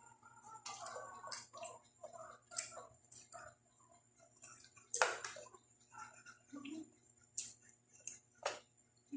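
A person eating close to the microphone: chewing with irregular mouth clicks and smacks, and a few sharper clicks about five seconds in and near the end.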